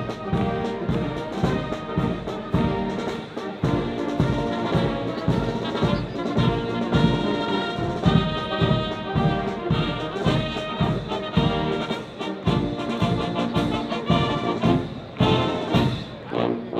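Military fanfare band playing: brass instruments sounding full chords over a steady drum beat.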